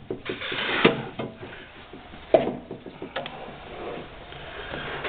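Knocks, clicks and clatter of metal machine parts being handled on a geared band saw. There are three sharp knocks spread through it, a quick run of ticks near the start, and some rubbing in between.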